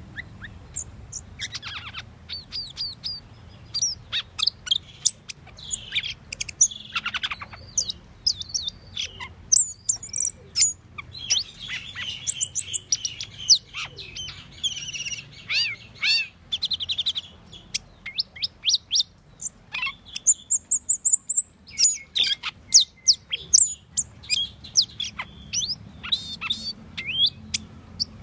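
Asian glossy starling singing: a busy, unbroken run of short, sharp chirps, squeaks and high whistles, with a few quick trills.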